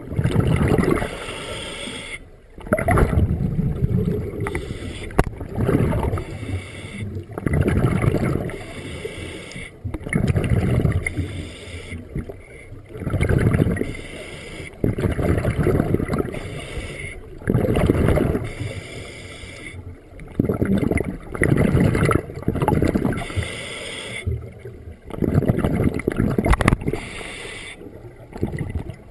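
Scuba diver breathing underwater through a regulator: bursts of rumbling, gurgling exhaust bubbles repeating every second or two in a steady breathing rhythm.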